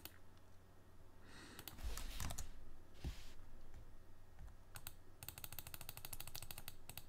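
Computer mouse clicking: a few scattered clicks, then a fast, even run of clicks near the end as a dialog's spinner arrow is clicked over and over.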